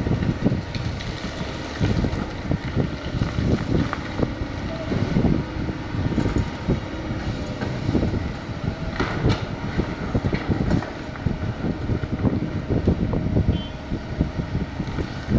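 Kobelco 220 hydraulic excavator working, its engine running under load with a continuous uneven rumble and frequent short knocks.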